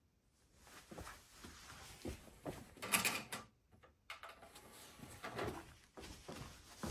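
A DVD being handled and loaded into a Blu-ray player's disc tray, heard as a series of knocks, clicks and rustles. The loudest cluster comes about three seconds in.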